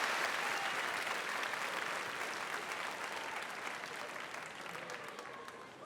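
Large audience applauding, the clapping fading away steadily.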